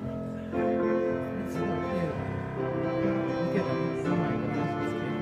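Instrumental song introduction on keyboard: sustained chords that change every second or two, beginning suddenly.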